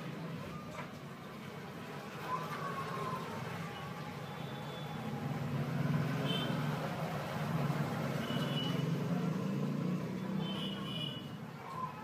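Low engine rumble of a passing vehicle, swelling through the middle and easing off near the end, with a few faint, short, high bird chirps.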